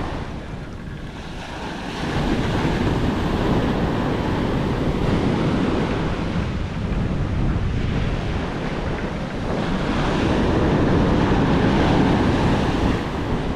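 Surf breaking and washing up a sandy beach, with wind rumbling on the microphone. The wash swells about two seconds in and again near ten seconds.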